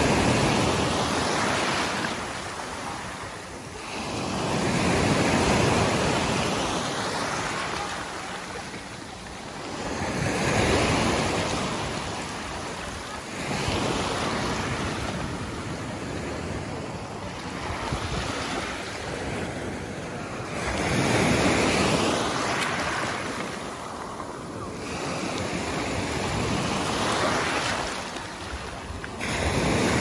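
Small sea waves breaking and washing up over a pebble beach, the surf swelling and easing every five or six seconds.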